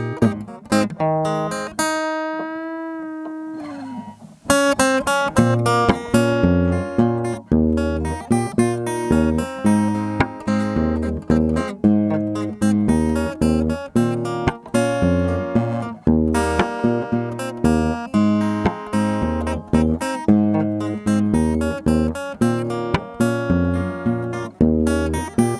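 Background music: plucked acoustic guitar playing a steady, rhythmic pattern, with one long held note that wavers in pitch about two seconds in before the picking resumes.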